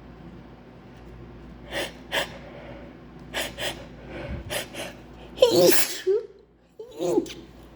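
A woman's sneezing fit: a run of short, sharp catching breaths building up, then a loud sneeze with a voiced cry about five and a half seconds in, and a shorter second sneeze about a second later.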